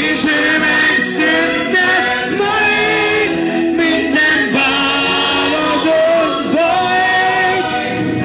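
A young man singing into a handheld microphone over musical accompaniment, amplified through the stage sound system.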